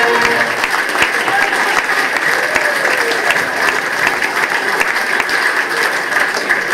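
Audience applauding: dense, steady clapping from a large crowd in response to a joke's punchline.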